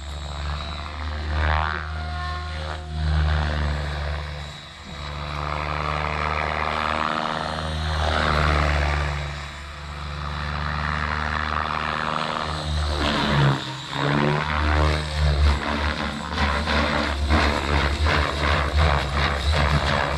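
Radio-controlled XLPower 550 helicopter flying: its rotor and motor whine rises and falls in pitch as it manoeuvres. In the last few seconds a rapid, even blade chop sets in.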